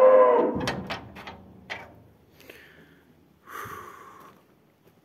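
A cow mooing, one call that trails off in the first half second. A few sharp knocks follow, then a short rustle about three and a half seconds in.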